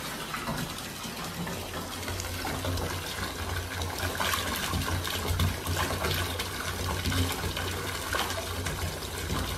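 Water running steadily from a bathtub tap, pouring into a partly filled tub.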